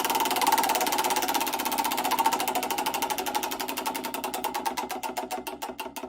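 Pagani Zonda F's AMG V12 engine, its firing pulses coming fast and evenly and then slowing steadily as the revs fall away.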